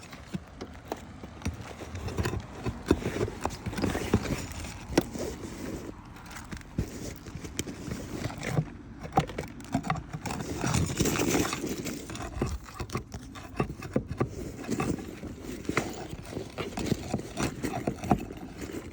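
Roofing flat bar prying nails out from under asphalt shingles: irregular metal knocks, clicks and scrapes against the shingles, busiest about halfway through.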